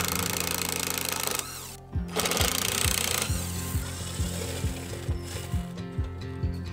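Cordless drill-driver running in two main runs in the first three seconds, with a short break of about half a second between them, then fainter, as screws are backed out of a metal electrical box. A music bed with a steady beat plays under it.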